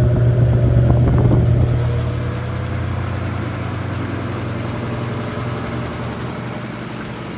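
Electrolux Essencial Care LES13 washing machine running with a loud, steady motor hum that eases down a little about two seconds in.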